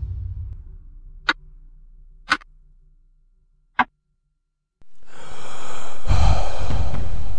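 The tail of a dramatic drum-and-music hit fading out, with three sharp wall-clock ticks over the first four seconds. After a short silence, a sudden loud steady rush of noise comes in about five seconds in.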